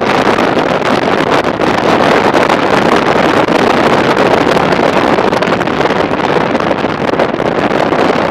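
Loud, steady wind rush on the camera's microphone while riding a Honda ST1300 touring motorcycle at road speed, mixed with the bike's running noise.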